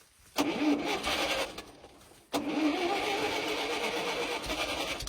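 Small gasoline engine of a Ditch Witch R40 trencher starting. It fires and runs for about a second, dies, then catches again about two seconds in and keeps running steadily.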